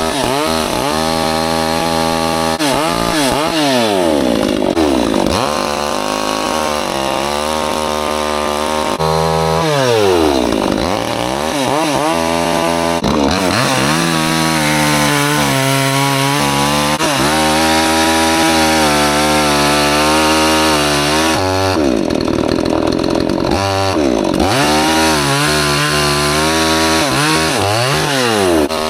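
Hyundai P1 62cc two-stroke chainsaw running hard through logs with a blunt chain. The engine pitch repeatedly drops and climbs back up between steady high-revving stretches.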